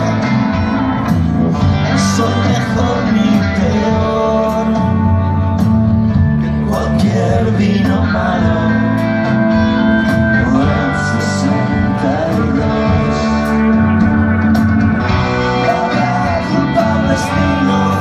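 Live rock band playing: electric guitars, bass, drums and keyboard, loud and continuous, with regular drum and cymbal hits.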